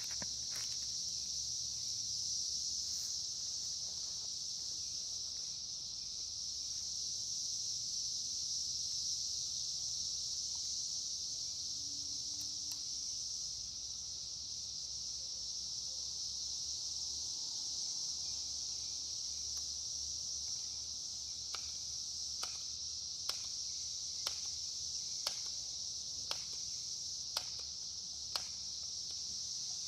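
A steady, high-pitched chorus of insects, most likely crickets, goes on without a break. In the last third a series of faint, sharp clicks comes at irregular intervals.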